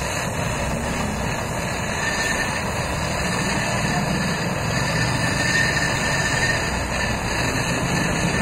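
High-pressure LPG torch burning steadily with a continuous rushing hiss, its flame heating a steel-to-steel joint to red heat as a brazing rod is melted in.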